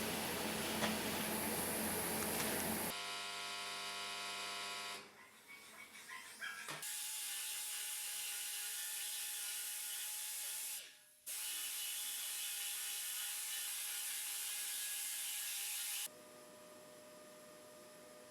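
Steady workshop hiss with an electrical hum, changing abruptly several times and dropping out briefly about eleven seconds in.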